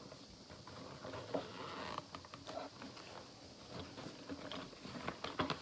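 Small scent sample packets being handled and shuffled, giving a soft rustling and light patter, with a few sharp clicks near the end.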